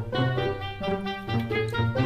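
Upbeat instrumental background music, with a bouncing bass line under short melody notes.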